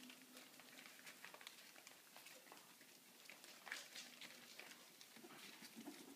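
Very faint rustling and light pattering of puppies' paws scrabbling on newspaper as they play, in near silence.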